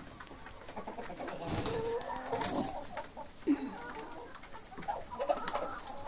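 A flock of laying hens clucking in short, scattered calls, with a burst of rustling noise about two seconds in.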